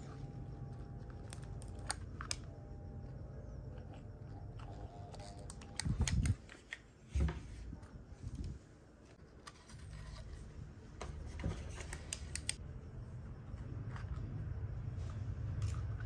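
Small plastic RC-car parts and a circuit board being handled, making scattered light clicks and taps over a steady low hum, with a couple of dull thumps about six and seven seconds in.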